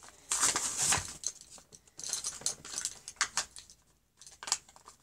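Foil Pokémon card booster packs crinkling and rustling as they are handled, in irregular bursts with a longer crackle near the start.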